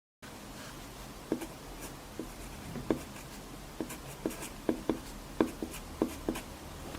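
Pencil writing on paper: a series of short, irregular strokes and taps, beginning about a second in, over a faint steady hiss.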